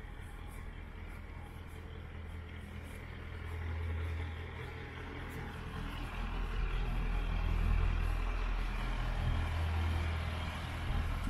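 Diesel farm tractor engine running, a steady low hum that grows louder from about halfway through as the tractor and its trailer pass close by.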